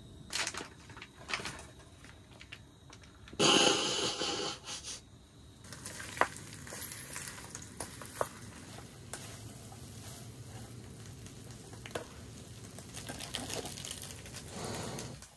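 Mac and cheese sizzling in a small pan on a lit canister camp stove, with a spatula stirring and scraping against the pan in scattered clicks. A loud burst of noise lasts about a second and a half a few seconds in, as the food goes into the hot pan.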